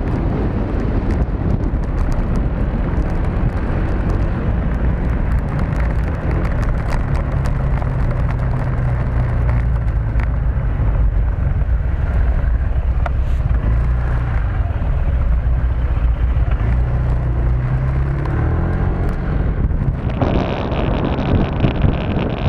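Motorcycle engine running with a steady low note, under wind noise on the microphone. About 20 seconds in the sound changes abruptly to a different, brighter noise.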